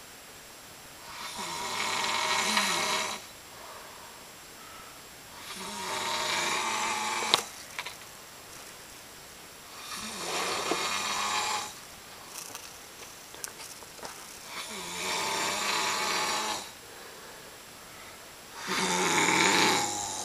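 A sleeping man snoring loudly: five long snores, each about two seconds, coming about every four to five seconds with quiet breathing gaps between.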